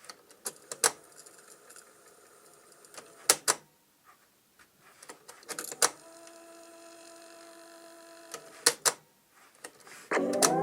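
Cassette transport of a Silver SR5000L boombox cycling between modes: several sharp mechanical clicks, with a steady motor hum for a couple of seconds past the middle. Tape music starts playing again loudly near the end.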